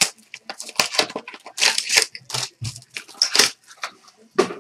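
Plastic wrapping on a sealed trading-card box crinkling and tearing as it is pulled open by hand, a quick run of sharp crackles.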